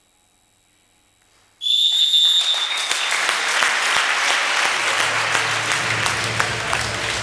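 A referee's whistle blows once, briefly, about one and a half seconds in, and at once the crowd and players break into loud applause that keeps going.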